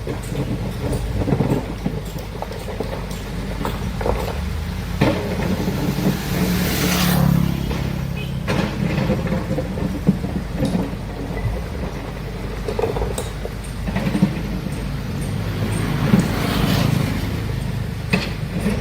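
Heavy excavator's diesel engine running under load, with scattered knocks and clanks from the digging work and a swell of noise about six to seven seconds in.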